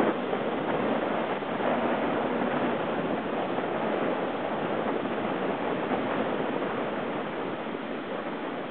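Heavy hurricane-swell surf breaking and washing up the beach, a steady rushing noise that eases slightly near the end, with wind blowing across the microphone.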